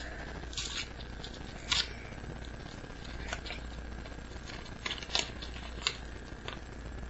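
Pokémon trading cards and a homemade paper booster pack being handled: a string of short, crisp rustles and flicks as the pack is opened and the cards are sorted through.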